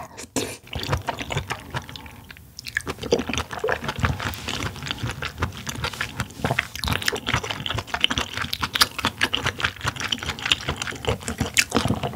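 Close-miked chewing of a mouthful of steamed giant oyster in pink cream sauce: a dense run of small clicks and smacks, with a short pause about two and a half seconds in.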